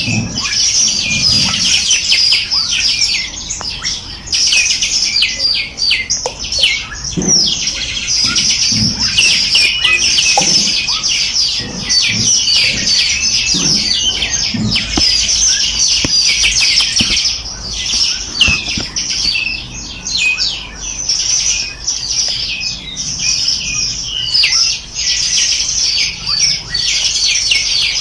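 Small songbirds singing together, a dense, unbroken stream of rapid high chirps and trills.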